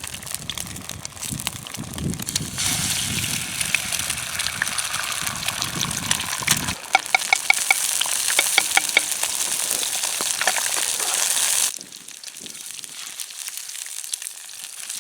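Bacon sizzling in a pan over a campfire, a steady high hiss with sharp grease pops. The sizzle stops abruptly about three-quarters of the way through, leaving quieter background noise.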